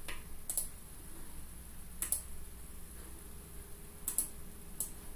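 Computer mouse clicking a handful of times, spaced a second or two apart, with a quick double click about four seconds in.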